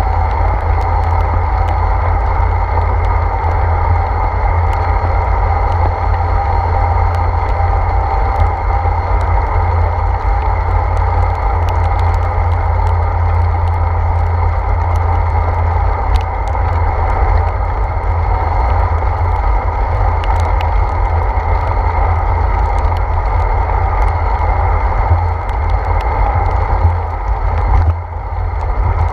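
Steady low wind rumble and tyre noise on a wet road, picked up by a handlebar-mounted GoPro Hero 4 on a moving bicycle, with scattered small clicks.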